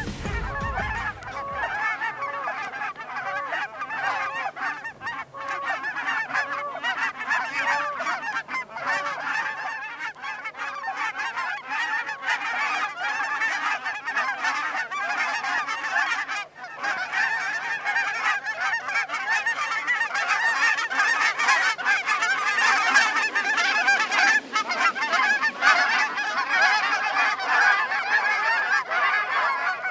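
A large flock of geese honking, many overlapping calls at once, growing louder about halfway through.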